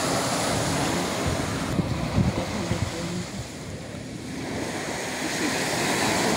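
Small surf breaking and washing up on a sandy shore, with wind rumbling on the microphone.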